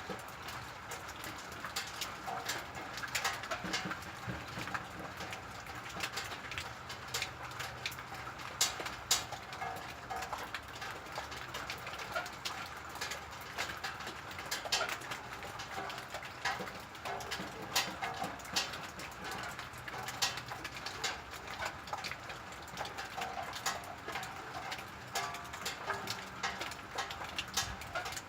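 Raindrops knocking on metal sheeting: an irregular patter of sharp ticks over a steady wash of rain.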